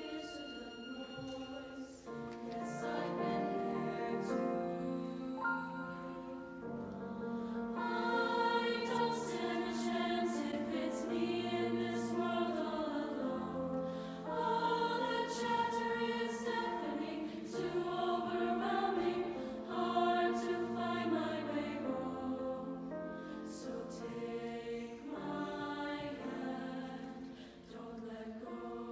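A school choir singing in several parts at once, with long held notes that swell and ease in volume.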